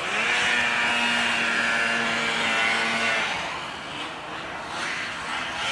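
Snowmobile engine revving up at the start, holding a steady high pitch for about three seconds, then easing off.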